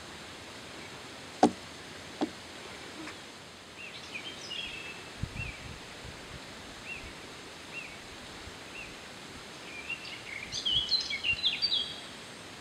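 A bird calling over a steady rush of flowing water: short rising-and-falling notes about once a second, then a quick run of higher, busier calls near the end. Two sharp clicks a couple of seconds in are the loudest sounds.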